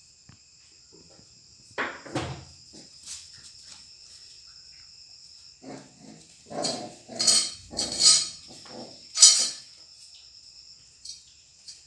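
A puppy at play giving short, loud yaps: one pair about two seconds in, then a quick run of about five in the second half. Insects chirr steadily at a high pitch underneath.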